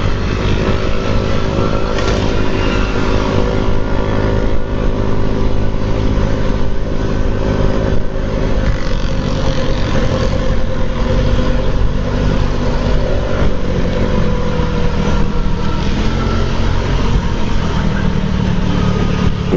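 Motor scooter engine running at a steady cruise while riding, heard with loud wind and road noise on the camera microphone.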